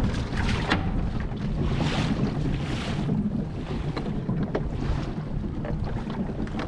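Wind buffeting the microphone over choppy sea, with waves splashing in several swells.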